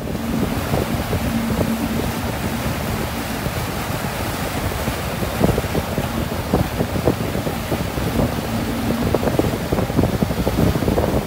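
Yamaha 252SE jet boat under way: wind buffeting the microphone and water rushing and splashing past the hull, with a faint steady low engine hum underneath.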